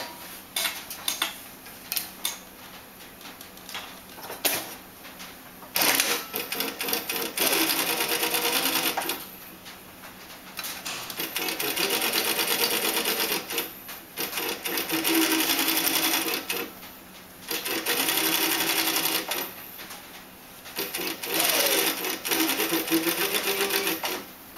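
ALPHA SF-3710/7N industrial shadow-stitching sewing machine sewing a trouser waistband in runs of two to four seconds, stopping briefly between runs while the fabric is repositioned. The first few seconds hold only scattered clicks of handling before the stitching starts.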